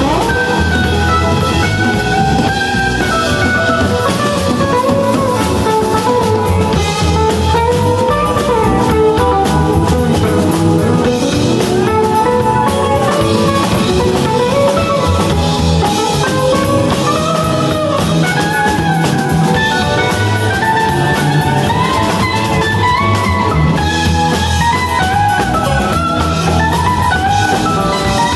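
Live rock band playing instrumental music: electric guitars, keyboard, bass and drum kit, with a winding electric guitar lead line that bends up and down in pitch.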